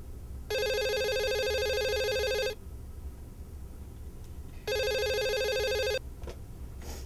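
Electronic telephone ringing with a warbling trill: two rings, the first about two seconds long and the second shorter, about two seconds apart.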